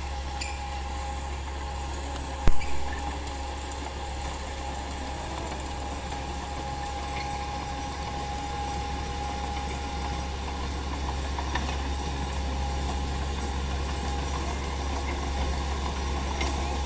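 Komatsu D31P bulldozer's diesel engine running steadily with a low rumble and a steady tone over it. A single sharp clank sounds about two and a half seconds in.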